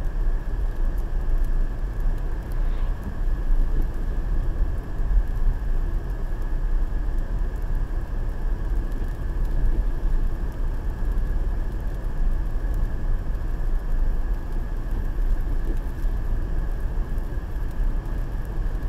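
Car cabin noise while driving at road speed, as picked up by a dashcam: a steady low rumble of tyres and engine, with a faint steady high tone.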